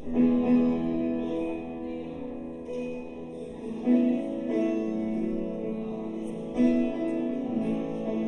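Live worship-band music: strummed acoustic guitar with piano holding sustained chords, a new chord struck near the start, again about four seconds in and about six and a half seconds in.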